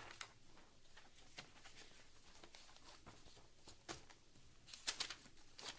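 Faint scattered clicks and rustles of paper being handled, with a few sharper ones near the end, over quiet room tone.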